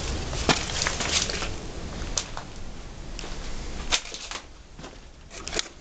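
Scattered clicks, knocks and rustles of objects being handled, over a low rumble that dies away about four seconds in.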